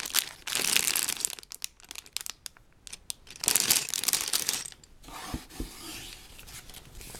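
Plastic bag of LEGO pieces and the set's packaging crinkling and rustling as they are handled, in two louder stretches, with a couple of light knocks near the end.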